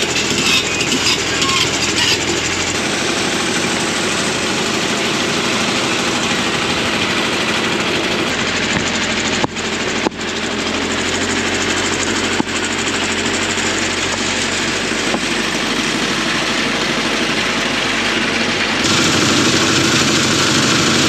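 Komatsu PC55MR mini excavator's diesel engine running under load while it digs and dumps dirt and rock into a drywasher, with gravel pouring and rocks clattering off the screen.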